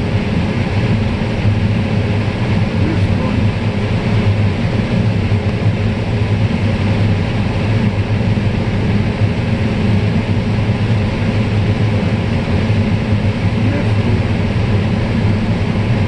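Combine harvester with a corn head harvesting standing corn: a loud, steady mechanical drone of the engine and running header that holds even throughout.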